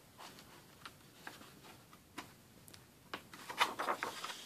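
A few soft scattered ticks, then paper crinkling and rustling about three seconds in as a book page is turned over by hand.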